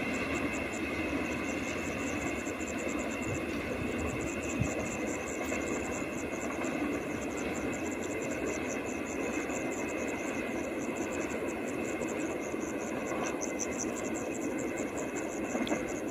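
A train running along the track: a steady rumble and rail noise, with a fast, even high pulsing above it.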